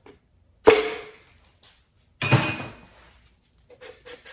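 Two sharp knocks about a second and a half apart, each ringing briefly, as a ringed piston is knocked down through a tapered ring compressor into a cylinder bore of a Ford 289 V8 block. A few light metal clicks follow near the end.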